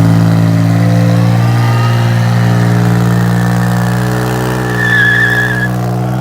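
BMW 335i turbocharged straight-six under hard acceleration, a steady engine drone held at a nearly constant pitch, with a high whine growing louder about five seconds in.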